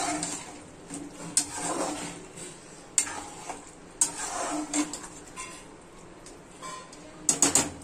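Spoon stirring a thick chana dal and chicken curry in a stainless steel kadai, scraping through the masala. Three sharp clinks of the spoon on the pan, then a quick run of clanks near the end.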